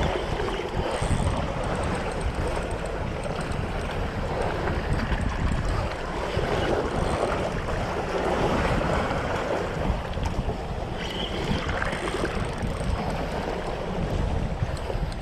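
Wind buffeting the microphone over sea waves washing against shoreline rocks, a steady rushing noise.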